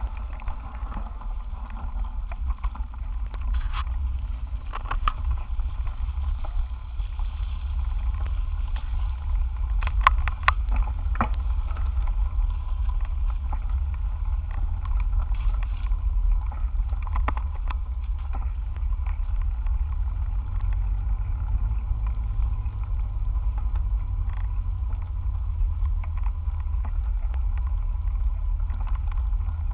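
Steady low rumble of wind and ride vibration on a bicycle handlebar-mounted camera, with scattered clicks and knocks as the bike goes over the rough street, the loudest cluster about ten seconds in.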